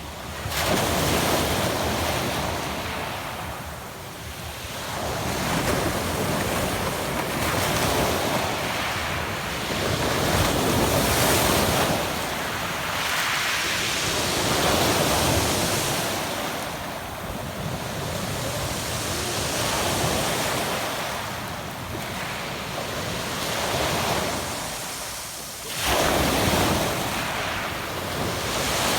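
Adriatic Sea waves breaking on a pebble beach, each one surging in and washing back over several seconds. A sharp, loud surge comes just after the start and another near the end.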